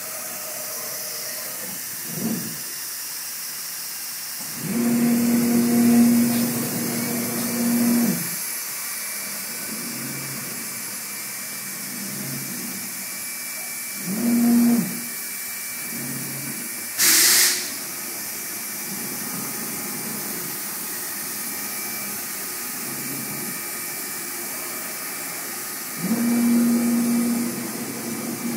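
2007 MultiCam 3000 Series CNC router running a cutting program in the air. The 5.5 HP Colombo spindle gives a steady high hiss, and the gantry's servo drives hum in a low steady tone during several moves: about five to eight seconds in, briefly near the middle, and again near the end. A short, sharp burst of hiss comes about seventeen seconds in.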